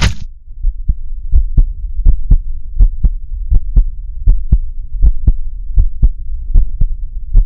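Heartbeat sound effect: steady paired lub-dub thumps, about eighty beats a minute, over a low steady hum.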